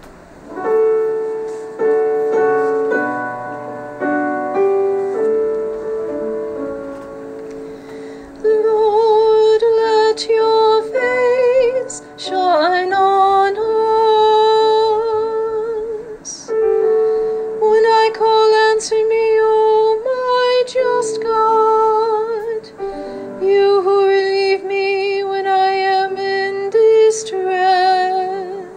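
A piano introduction, then a woman singing with piano accompaniment from about eight seconds in: the sung responsorial psalm that follows the first reading at Mass.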